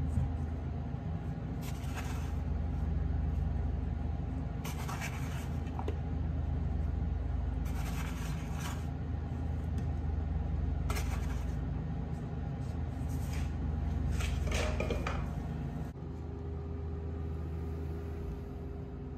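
A steady low machine hum with a few brief scrapes and rustles as a gloved hand arranges fruit on a plate on a steel counter. The hum drops away about 16 seconds in.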